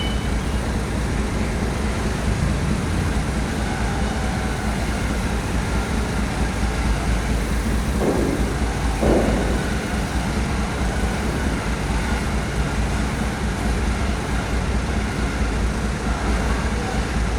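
Heavy truck's diesel engine running with a steady low rumble, and two short sliding tones a little past halfway through.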